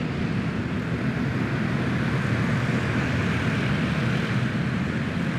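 A pack of racing karts with small single-cylinder Predator engines running hard together at full throttle on the restart, making a steady, blended engine drone.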